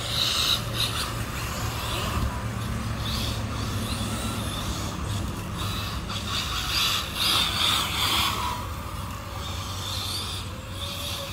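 Small electric motors of a radio-controlled car and drone running, with a steady low hum under a high whine that swells and fades several times.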